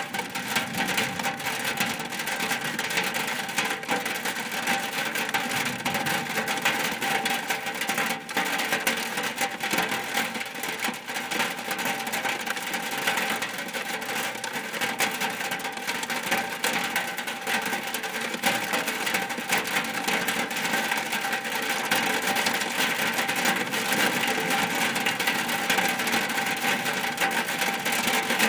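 Rain falling steadily on a shack roof: a dense, even patter of many small drop impacts.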